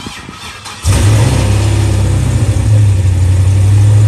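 A car engine comes on suddenly about a second in and keeps running loud and steady with a low drone.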